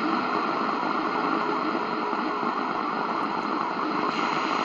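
Shortwave static: a steady hiss from the C.Crane CCRadio SW's speaker, tuned to about 4985 kHz during a band scan with no clear station coming through.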